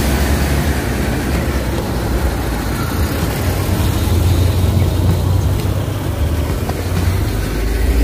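Steady low rumble with an even hiss over it, from wind buffeting the microphone of a handheld camera carried along on a walk.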